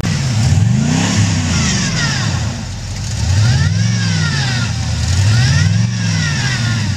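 Jeep Wagoneer engine revving up and down repeatedly, rising and falling about four times, as the truck pushes through deep snow.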